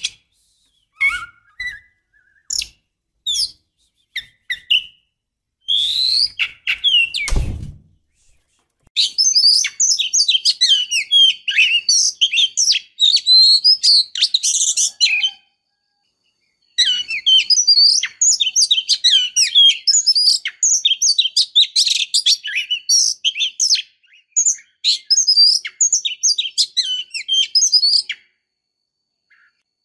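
Female Oriental magpie-robin (kacer) calling: a few separate high calls, then long runs of rapid, high-pitched chattering broken by a pause of about a second. This is the excited chatter (ngobra) of a female in breeding condition, used to provoke males into singing. A single short knock comes about seven seconds in.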